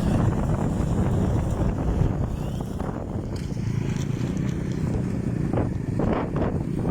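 A boat's motor running steadily, with wind buffeting the microphone; a few short knocks come near the end.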